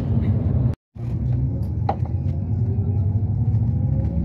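Low road and engine rumble heard from inside a moving motor vehicle, with a faint rising whine in the second half as it gathers speed. The sound cuts out for a moment about a second in.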